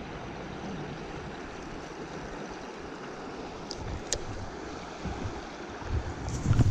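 Shallow stream water running steadily over a rocky riffle. A couple of sharp clicks come about four seconds in, and low bumps build near the end.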